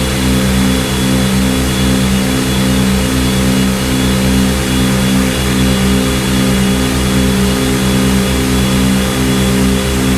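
Analog synthesizer drone: a low chord of held tones that throbs in a steady pulse, a few beats a second, with a faint hiss above.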